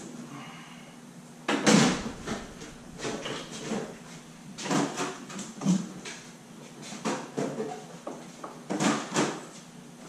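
Jeep Wrangler's rear tailgate, carrying the spare tire, swung shut with a heavy thump about two seconds in, followed by scattered knocks and rattles of work at the back of the Jeep.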